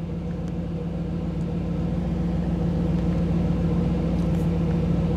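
1985 Camaro IROC-Z's Tuned Port Injection V8 idling steadily, slowly getting a little louder.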